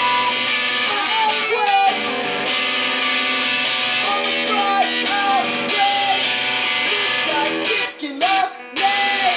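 Electric guitar strummed with a man singing over it, the melody sliding between notes. The playing cuts out twice briefly near the end.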